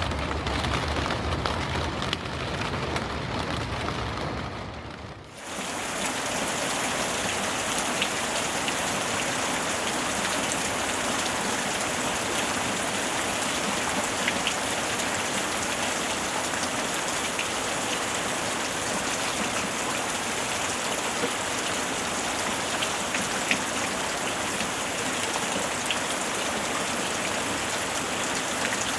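Recorded rain. A rain track with a deep low rumble fades out about five seconds in, and a new recording of steady heavy rain takes over: an even hiss with scattered sharp drop ticks.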